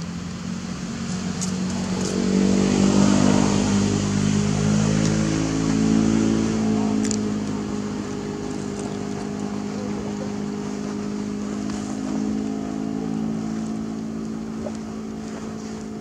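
An engine running out of sight, growing louder about two seconds in, then slowly fading away.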